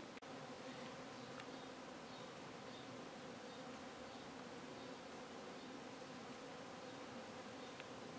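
A flying insect buzzing with a steady, slightly wavering low hum.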